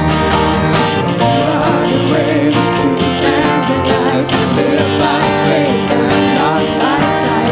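Church worship band playing a song, acoustic guitar strumming under a wavering melody line.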